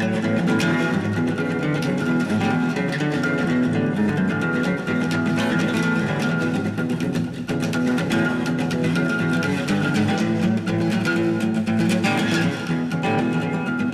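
Instrumental intro music led by plucked and strummed guitar.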